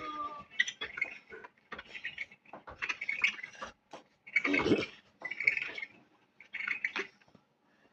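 A string of short, varied sound effects, one burst after another about every half second to a second, the loudest about four and a half seconds in.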